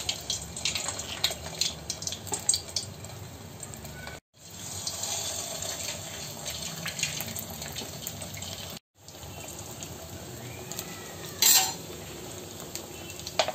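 Potato-stuffed bread rolls deep-frying in hot oil in a kadhai, a steady sizzle and crackle of bubbling oil that breaks off briefly twice. A single sharp knock against the pan stands out about two-thirds of the way in.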